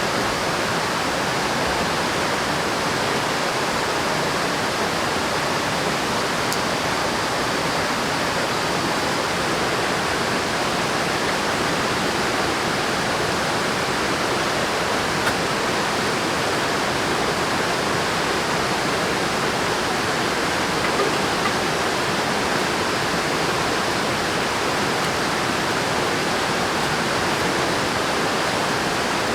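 River water rushing, a steady, even noise that doesn't change.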